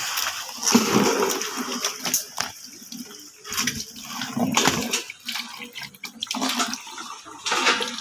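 Water from a hose splashing into a plastic bucket, coming and going in uneven surges.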